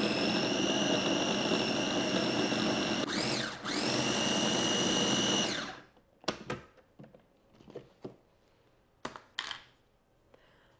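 Cuisinart BFM-1000 baby food maker's chopping blade motor running with a steady high whine as it purees steamed carrots; it drops out briefly about three seconds in, spins back up, and stops just before six seconds in. A few short clicks and knocks follow as the lid is opened and handled.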